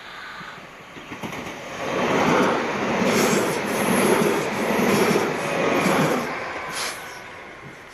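Electric multiple-unit passenger train passing at speed: wheel and rail noise swells about two seconds in, pulses in an even rhythm, then fades away near the end.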